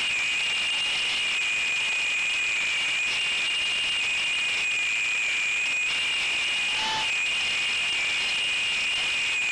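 Small 3-inch FPV quadcopter's motors and propellers whining steadily over a high hiss, as picked up by the onboard camera's microphone. A short, lower tone sounds once about seven seconds in.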